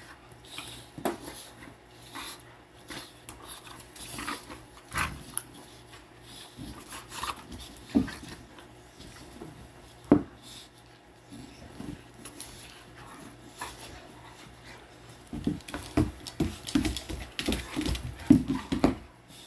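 Two dogs play-fighting: irregular dog vocal sounds mixed with scuffling on a cushioned dog bed, busiest in the last few seconds as they face off.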